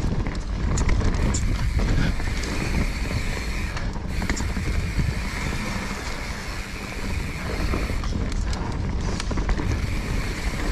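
Mountain bike rolling fast down a dirt singletrack: a steady rumble of tyres on the dirt and wind on the microphone, with scattered clicks and rattles from the bike over roots and bumps.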